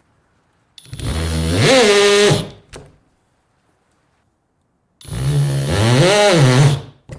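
Hercules HCB92B brushless 20V hammer drill running in hammer mode at speed 2, drilling in two bursts of about two seconds each, its pitch rising and falling as the motor spins up and slows.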